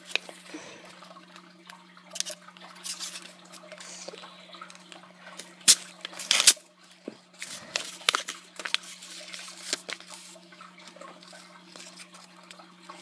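Scattered small clicks and scratching of homemade craft materials being handled and worked by hand, two sharper clicks a little past the middle, over a steady low electrical hum.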